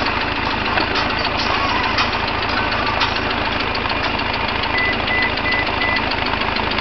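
1956 Farmall Cub's four-cylinder flathead engine idling steadily, with an even, regular chug.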